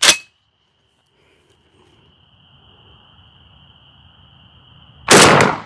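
A single loud shot from a Hatsan Bulltac semi-automatic 12-gauge bullpup shotgun about five seconds in, ringing out for about half a second. A sharp clack from the gun comes at the very start, and a faint steady high-pitched tone runs between the two.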